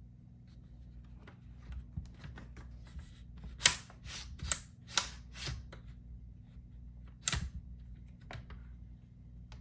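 Clicks and knocks from a clip-on portable laptop monitor being handled, slid along its mount and turned: a run of four or five sharp clicks around the middle, one more near the end, and lighter taps between.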